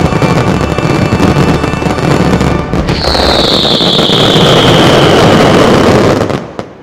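Finale of a fireworks display over its music soundtrack: a dense barrage of firework bangs and crackle mixed with loud music, with a long high tone gliding slowly downward from about three seconds in. Both stop abruptly near the end, leaving only faint background noise.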